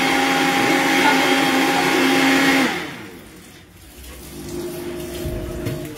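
Vitamix blender running at high speed, blending a smoothie with a steady, loud motor sound. It is switched off about two and a half seconds in, and the motor winds down to a stop.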